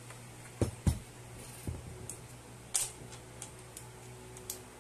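Handling noise from the partly disassembled JBL Flip 5 speaker's plastic housing: two sharp knocks a quarter of a second apart about two-thirds of a second in as it is handled and set down on a wooden tabletop, then a further knock, a brief scrape and a few light clicks.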